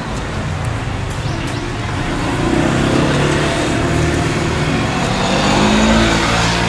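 Road traffic passing close by: a steady engine rumble that grows louder through the second half as a vehicle goes past.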